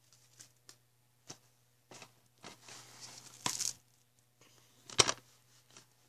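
Plastic DVD case being handled and opened: scattered light clicks and taps, a stretch of plastic rustling from about two and a half to three and a half seconds in, and a sharp plastic snap about five seconds in.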